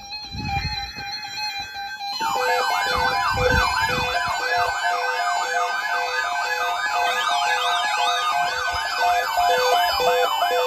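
A short burst of EAS digital data tones, then from about two seconds in a loud electronic siren-style alert tone that sweeps up and down about three times a second over steady beeping tones: the attention signal of an emergency alert.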